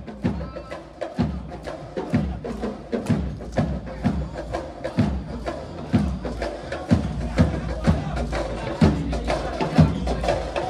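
Marching band playing, its drums beating a steady rhythm of about two strokes a second over the sound of the band.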